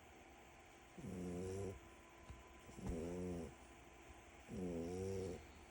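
French bulldog puppy snoring: three snores, each a bit under a second long, coming about every second and a half to two seconds.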